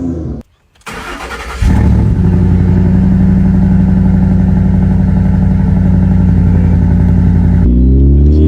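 A car engine starting with a short burst of noise and then running steadily; near the end its pitch begins to climb as it revs up.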